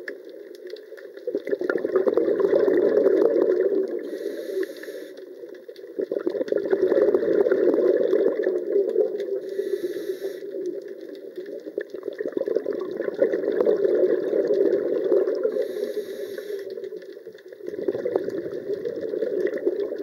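Scuba diver breathing through a regulator, heard underwater: a long rush of exhaled bubbles about every five to six seconds, four times, with a short hiss between them.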